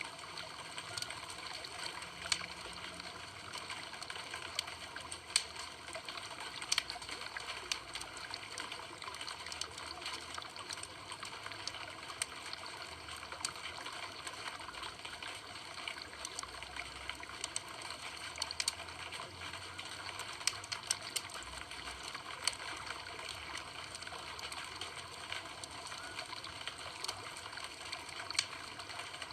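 Campfire burning with a steady hiss and frequent sharp crackles and pops at irregular moments.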